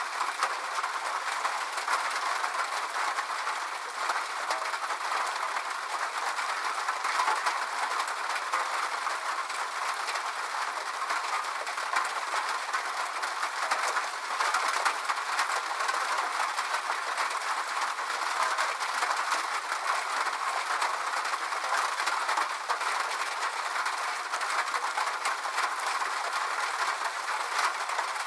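Steady rain falling on a metal roof: a dense patter of fine drop ticks over an even hiss, with no low rumble.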